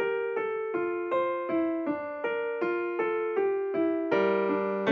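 Background music on a piano-like keyboard: a melody of single notes at an even pace, about three a second.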